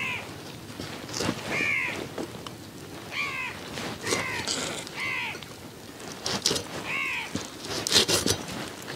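A crow cawing repeatedly, about six separate caws spread over several seconds, with a few short sharp clicks in between.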